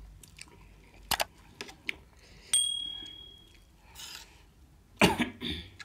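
Table eating sounds: a few small clicks, then a metal spoon striking a steel plate with a sharp, ringing clink about two and a half seconds in, and a louder mouth sound near the end.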